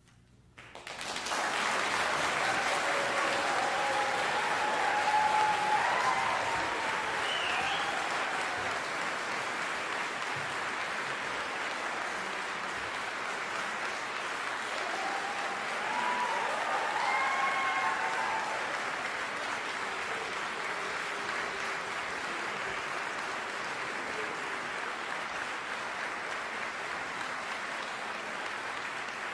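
Audience applauding, breaking out about a second in after a moment of near silence. A few voices call out over the clapping twice.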